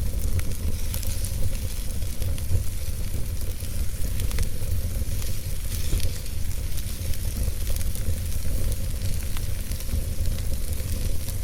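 Wood fire burning in a fireplace: a steady low rumble of flames with a hiss and irregular small crackles and pops from the burning logs.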